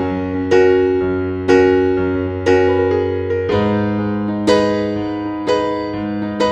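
Background piano music: a slow, gentle tune with a note or chord struck about once a second and fading, over a held bass note that changes about halfway through.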